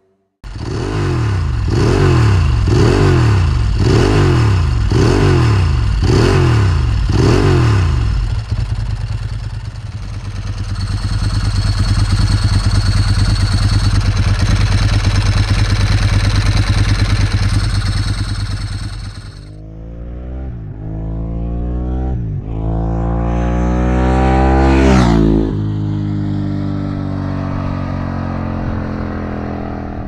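Motorcycle engine revving in quick blips about once a second, then held at steady high revs. After a break it gives way to a different engine note that rises and falls, climbs sharply to one high rev and drops back to a lower steady running note.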